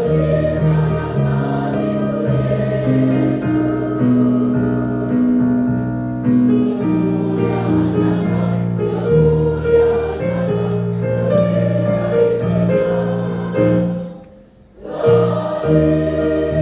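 Mixed choir of men's and women's voices singing in held, sustained chords, breaking off briefly near the end before the next phrase begins.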